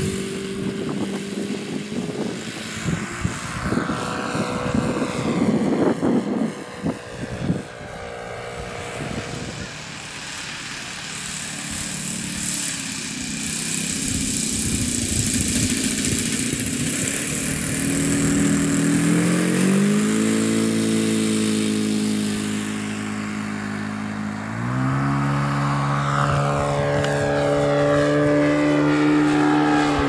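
Model-aircraft four-stroke glow engine (OS FS-95V) turning a propeller, with irregular noise on the microphone in the first several seconds. In the last third the engine note steps up in pitch twice as the throttle is opened.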